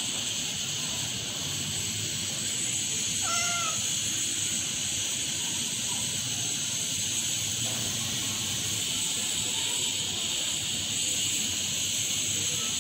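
A cat gives one short meow a little over three seconds in, over a steady high-pitched hiss.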